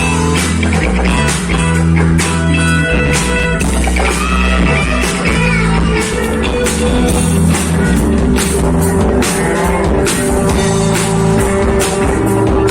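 A rock band playing live: electric guitar over bass and a drum kit keeping a steady beat.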